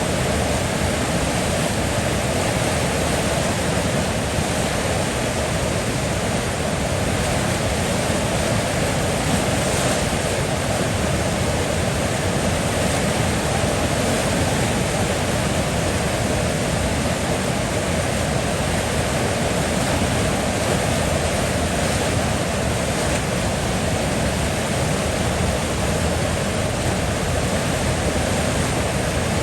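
River water flowing with a steady, even rushing that does not change.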